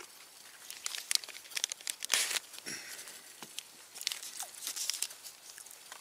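Packaging being handled: irregular crinkling and rustling, with a short tearing sound about two seconds in.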